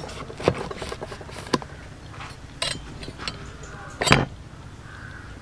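A cleaver knocking on a plastic cutting board as passion fruits are cut in half: several light knocks, then one loud knock about four seconds in.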